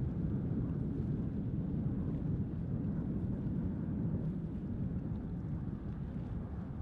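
Low, steady rumble of a twin-engine business jet on final approach to land, mixed with wind on the microphone.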